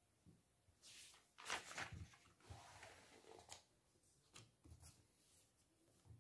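Faint paper rustle of a book page being turned, a few soft swishes between about one and three and a half seconds in, followed by a few light clicks.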